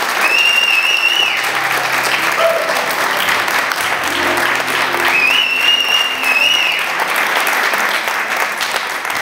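Audience applauding steadily, with two long, high whistles from the crowd, one near the start and one around the middle.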